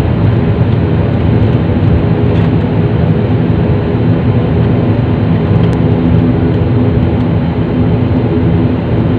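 Cabin noise of a high-wing propeller airliner taxiing after landing: a loud, steady engine and propeller drone with an even low hum.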